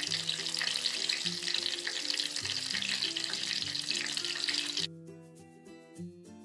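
Batter-coated omelette pieces deep-frying in hot oil: a dense, steady sizzling crackle that cuts off sharply about five seconds in.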